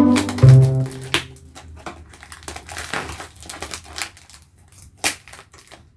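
Parcel packaging being unwrapped by hand: irregular crinkling and crackling of wrapping, with a sharper crack about a second in and another near the end. Background music with a bass line stops within the first second.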